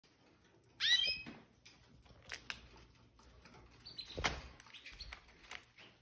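Red factor canaries calling in their cage: one loud, ringing chirp about a second in, then a few short, high chirps, with scattered light taps and rustles between them.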